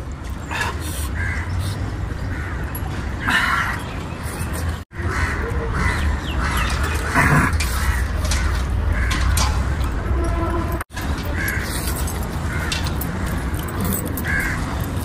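Crows cawing now and then over a steady low outdoor rumble, with the sound cutting out abruptly twice.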